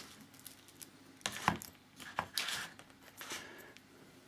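Fishing reels being handled and set down by hand on a table: a few short knocks and rustles, the sharpest a click about one and a half seconds in.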